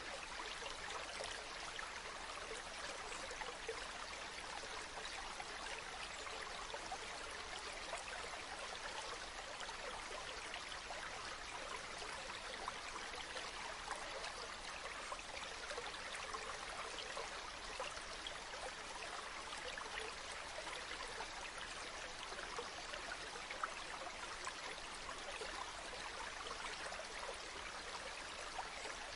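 Waterfall: water falling and splashing in a steady, unchanging rush, flecked with fine droplet patter.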